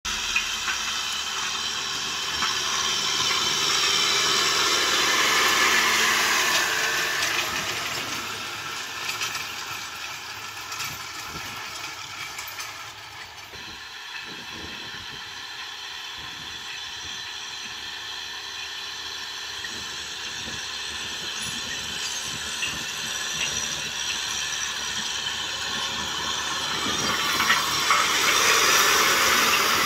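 Farm tractor engine running under load while its rear-mounted rotary tiller churns dry soil, a steady mechanical rattle. It grows louder about five seconds in, fades somewhat in the middle, and is loudest again near the end as the tractor comes close.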